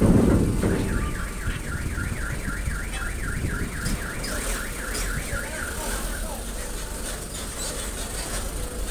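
An electronic warning alarm warbling up and down about five times a second for roughly five seconds, then stopping. Under it runs a steady low rumble, with a louder rumbling surge in the first half second.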